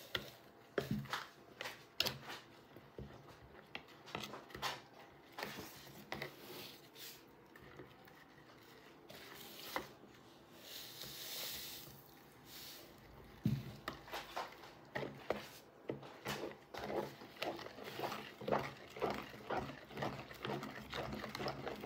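Rubber spatula stirring lye into coconut milk in a plastic pitcher, knocking and scraping against its sides: scattered knocks at first, then about halfway through a steady stirring rhythm of about two strokes a second.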